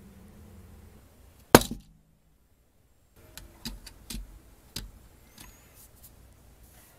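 LEGO plastic pieces clicking and tapping as they are handled: one sharp, loud click, a second of dead silence, then a run of about four lighter clicks as a minifigure is pressed onto the model.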